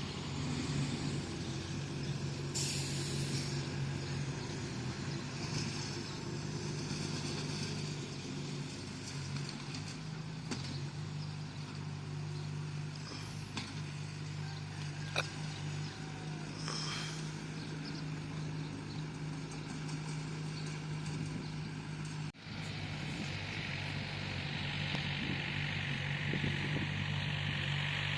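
Bulldozer's diesel engine running steadily at a constant pitch. It breaks off briefly about 22 seconds in, and a steady hiss joins it afterwards.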